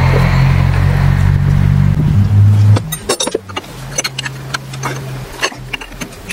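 A loud, steady low machine hum that stops abruptly about three seconds in. Then come light metallic clicks and clinks of a combination wrench on a steel hydraulic fitting being screwed into an aluminium adapter plate.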